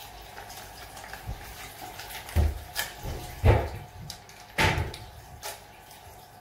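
A few dull knocks and thumps, the loudest about three and a half seconds in, with lighter clicks between them, over a faint steady hiss of running water.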